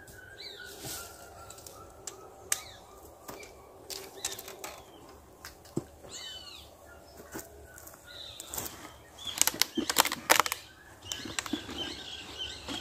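Clicks and rustling from fishing gear being handled by hand, with a louder run of rustling and knocks about two-thirds of the way through as the backpack is reached into. Small birds chirp briefly in the background.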